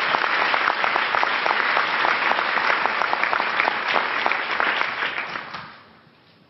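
Large audience applauding, a dense mass of clapping that dies away near the end.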